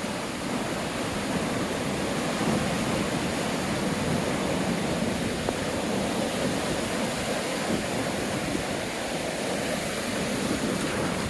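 Rough storm surf breaking, a steady, even rush of noise with no single wave standing out.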